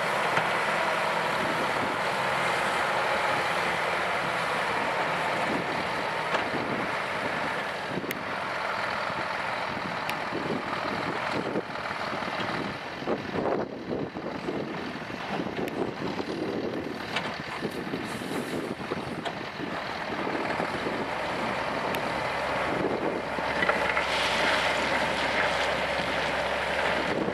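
Scania P380 tipper's diesel engine running as the loaded 8x4 truck manoeuvres, with the engine note rising near the end as the hydraulic hoist starts lifting the tipper body. Some wind on the microphone.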